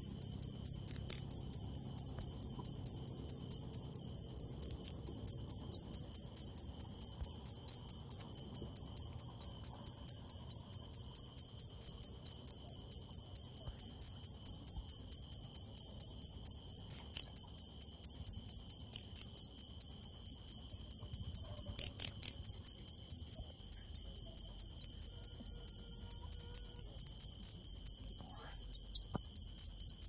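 A cricket chirping loudly in an even rhythm of about three to four high-pitched chirps a second, with one brief break about three-quarters of the way through. A fainter steady insect trill lies beneath it.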